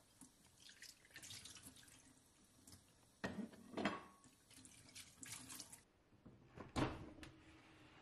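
Kitchen tap running into the sink while plates are rinsed under it, with a few ceramic clinks about three to four seconds in. The water stops near six seconds, then a single louder knock follows.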